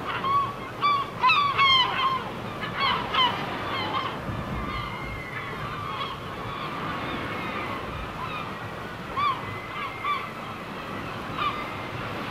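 Birds calling: a quick run of short calls during the first few seconds, then a few scattered calls later, over steady wind noise.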